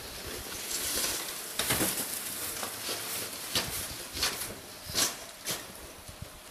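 Deep snow crunching and scraping as a handled snow scoop is pushed and boots tramp through it, an even hiss broken by irregular louder crunches.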